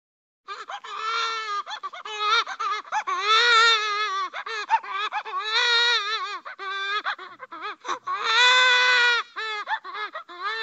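Cartoon-style baby crying sound effect: a high-pitched wailing cry that starts about half a second in, broken by short sobbing catches, with three long drawn-out wails.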